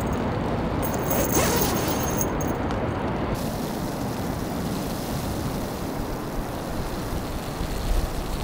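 Steady rain in a pine forest: an even hiss with a low rumble under it, and a brief scraping sound about a second in.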